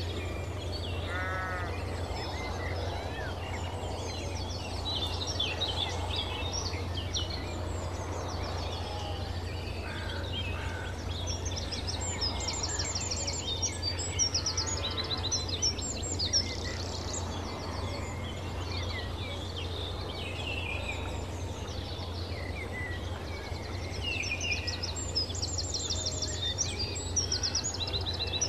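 Countryside ambience: many birds chirping and trilling at once, busiest midway and near the end, over a steady low hum.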